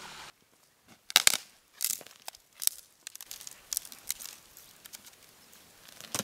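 Dry twigs and branches being snapped and laid onto a fire pit: a few sharp cracks about one to three seconds in, then lighter clicks and rustles as sticks are set down.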